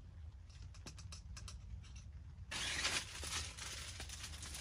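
A run of light clicks, then, about halfway through, a louder crinkly rustling of a yellow plastic bag being picked up and handled.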